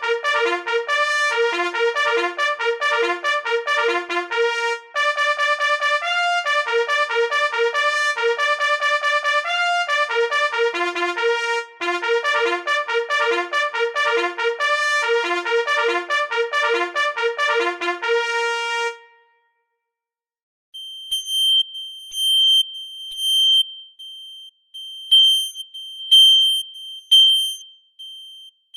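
Digital trumpet sound effect playing a fast run of short staccato notes for about the first two-thirds, then stopping. After a brief silence, a synthesized smoke-alarm sound gives single high-pitched beeps at uneven intervals of about a second.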